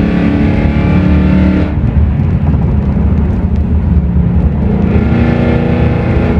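2020 Mustang GT's 5.0 V8 running through aftermarket valved exhaust mufflers. A steady engine note turns duller and rougher about two seconds in, and the pitched note comes back near the end.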